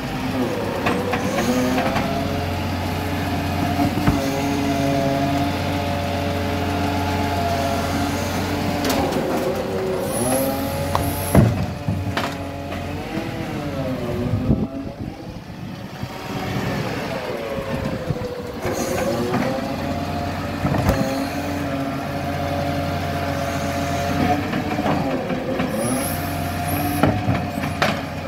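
Side-loader garbage truck with a Sport SL220 body at work: the engine revs up and drops back several times to drive the hydraulic arm as it lifts and empties wheelie bins. There are loud knocks as a bin is tipped, and short hisses of air from the brakes.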